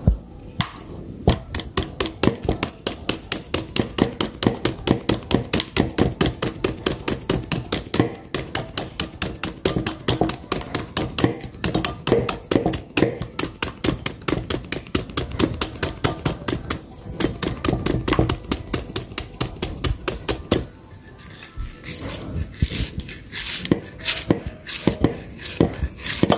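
Cleaver blade striking rapidly into a peeled bamboo shoot held in the hand, scoring it into thin strips: an even run of sharp chopping strokes, about four or five a second, that thins out to fewer, irregular strokes about twenty seconds in.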